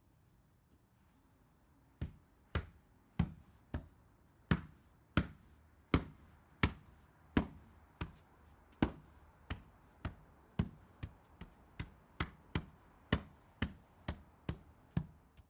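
A long-handled digging tool struck repeatedly into soil, one sharp blow about every two-thirds of a second, starting about two seconds in.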